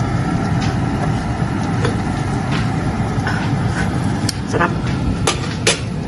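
A steady low rumbling noise, with a few sharp clinks of a metal spoon against a glass dish in the last two seconds.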